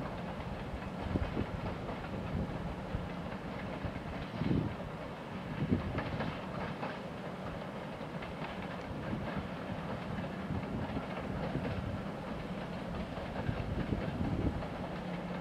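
Freight train rolling along the track, a steady rumble with a faint steady hum and irregular clicks and knocks from the wheels over the rail joints.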